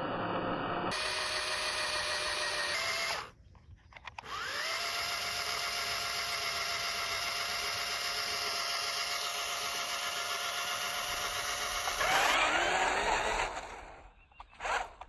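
Small electric motor and gearbox of a toy RC rock crawler whining steadily under throttle, wheels spinning in sand. It cuts out briefly a few seconds in, then spins back up with a rising whine, rises again about twelve seconds in, and drops out shortly before the end.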